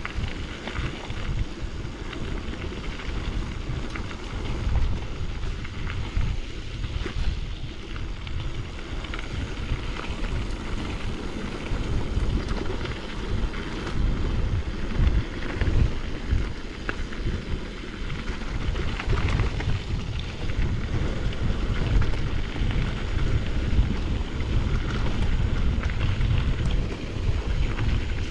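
Wind buffeting the camera microphone as a mountain bike rolls over rough trail, with tyre noise and small clicks and rattles from the bike, growing a little louder in the second half.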